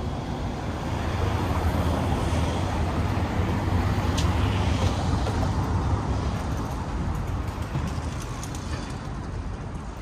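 A road vehicle passing close by. Its low engine rumble and road noise swell over the first few seconds and fade toward the end, with a sharp click about four seconds in.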